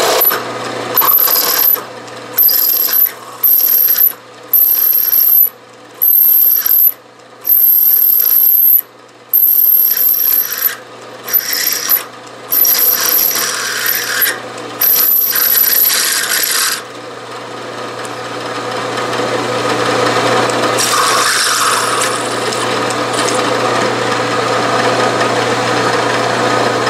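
A 7/16-inch stubby twist drill in a Bridgeport milling machine drilling steel, cutting in about a dozen short bursts, each with a high-pitched squeal, over the steady hum of the spindle. After about 17 seconds the cutting stops and the machine runs on steadily.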